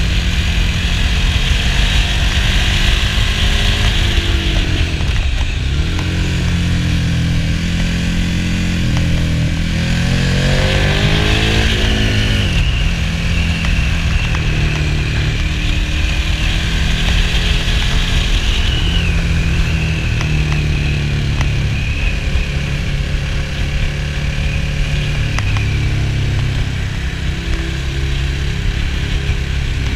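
KTM 1290 Super Duke R's V-twin engine heard from on board while riding, the revs rising and falling through the bends. About ten seconds in the revs climb, then drop off sharply a couple of seconds later.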